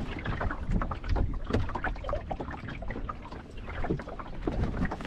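Water splashing and lapping irregularly against the clinker plywood hull of a small sailing dinghy under way, over a low wind rumble on the microphone.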